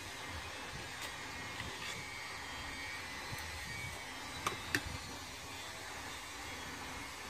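Spoons and forks clicking on plates as food is eaten, a few light clicks with two sharper ones about four and a half seconds in, over a steady background hiss.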